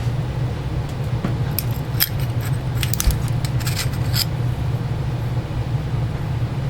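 Small metal chainsaw parts and tools being handled during disassembly: a run of sharp metallic clinks and taps in the middle of the stretch, over a steady low hum.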